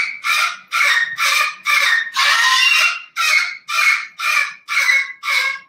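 A bird calling loudly over and over, about two harsh, squawking calls a second, which stop abruptly near the end.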